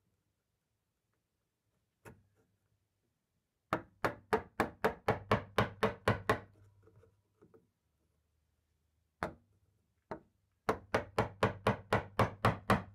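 A wood chisel being struck in quick, even blows, about five a second, as it chops out a mortise in hardwood. After a quiet start, one run of about a dozen strikes comes around four seconds in, two single blows follow after a pause, and another fast run begins near the end.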